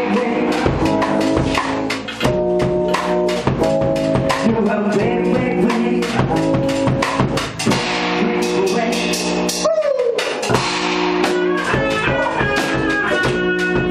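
Rock band playing live: electric guitars chording over a steady drum-kit beat with cymbals, with a falling slide on a note about ten seconds in.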